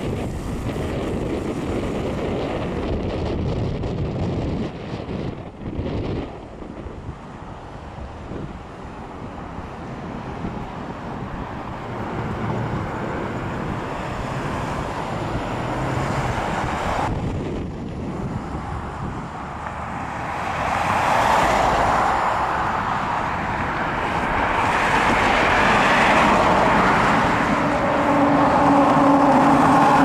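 Road traffic at an intersection: cars driving by with tyre and engine noise, and wind buffeting the microphone in the first half. The traffic noise grows louder in the last third as vehicles pass close, with an engine note near the end.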